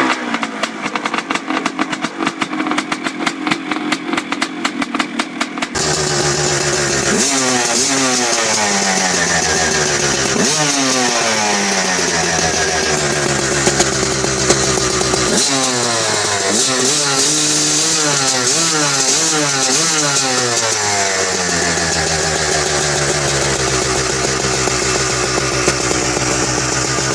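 Two-stroke dirt bike engine. For the first six seconds it runs choppy and uneven. Then the sound changes abruptly to a steady idle, blipped up and down several times, with a cluster of quick revs near the middle.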